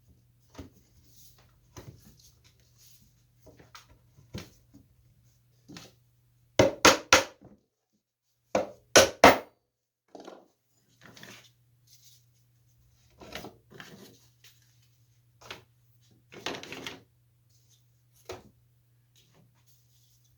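Wooden chair parts being knocked apart and handled: scattered light wooden knocks and clatter, with two loud bursts of three or four quick strikes around the middle. A low steady hum runs underneath and drops out for a few seconds in the middle.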